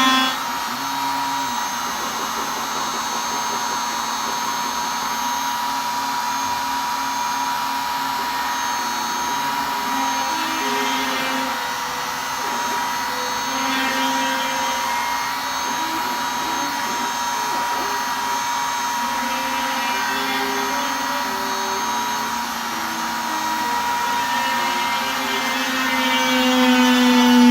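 DIY CNC router milling a test piece: a steady high spindle whine over a lower motor hum that jumps between pitches as the machine moves, with some pitches gliding near the end.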